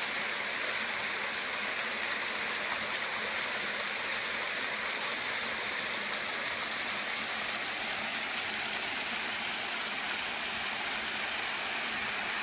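Small mountain waterfall cascading over rocks: a steady, even rush of falling water with a hissy, high-leaning character.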